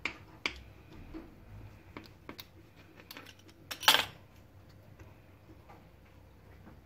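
Light taps and clicks of dough and a rolling pin being handled on a floured worktop, with one louder knock about four seconds in as the rolling pin comes into play.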